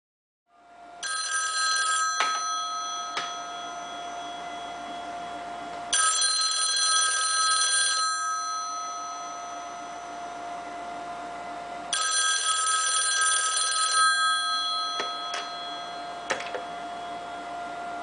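The bells of a brown ITT rotary-dial desk telephone ringing three times, each ring about two seconds long and coming every six seconds, the tones ringing on and fading between rings: the incoming-call ring. A few single clicks sound between the rings.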